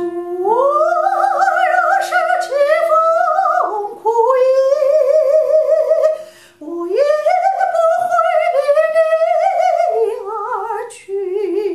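A woman singing a vocal demonstration: four phrases that slide up into held, vibrato-rich notes, sung with her tongue relaxed and resting on her lower teeth, which she says keeps the vocal cords relaxed. A held keyboard note rings on underneath through the first half.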